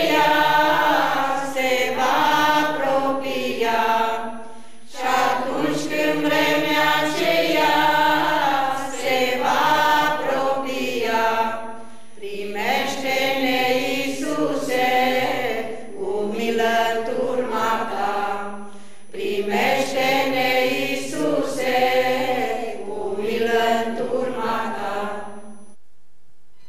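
A choir singing a religious song in Romanian in long phrases with short breaks between them; the singing stops about a second before the end.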